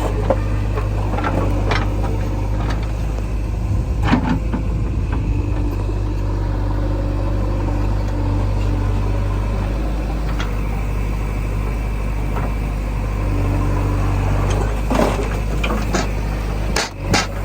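Heavy diesel machinery engine running steadily at an even, low pitch, with a few short knocks, the loudest about four seconds in and near the end.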